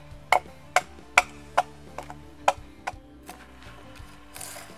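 Axe chopping knots off a log: a run of sharp strikes on wood, about two a second, that thins out after about three seconds. Near the end comes a short scrape of a knife blade along the wood.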